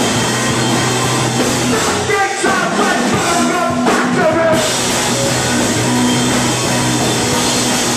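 Live rock band playing loud: electric guitar, drum kit and sung vocals.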